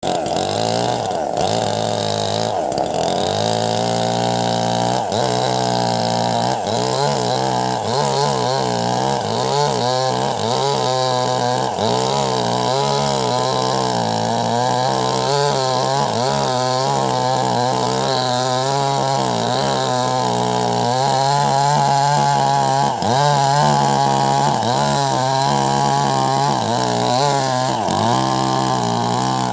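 Wagner WG620 two-stroke chainsaw running hard and cutting wood, its engine pitch rising and falling again and again as the chain bites and frees.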